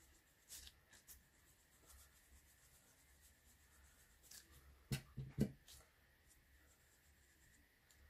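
Faint dabbing and rubbing of a foam sponge applicator on embossed card, with a few soft knocks about five seconds in.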